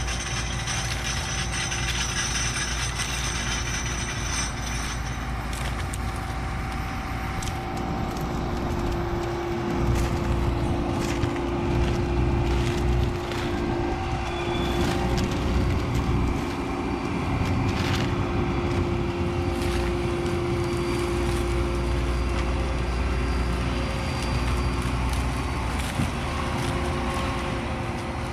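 Heavy farm machinery, a combine harvester and a tractor, running steadily with a low diesel rumble and a steady drone, with scattered clicks and knocks.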